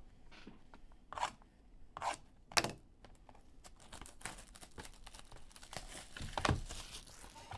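Foil trading-card pack wrappers being torn open and crinkled, in a few short rips and rustles, with a longer bout of crinkling near the end.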